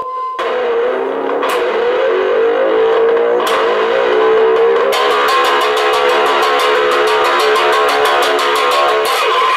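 Homemade whamola, a one-string electric bass with a pickup, struck with a wooden spoon. It starts with a few single whacks, its pitch sliding between them, then breaks into a fast, even run of strikes about halfway through.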